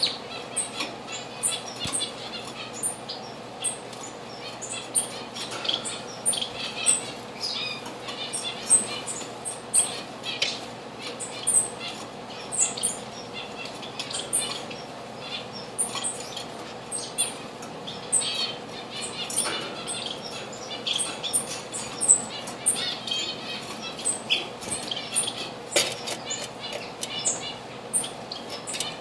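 Small birds chirping and twittering, with many short high calls following one another quickly and overlapping.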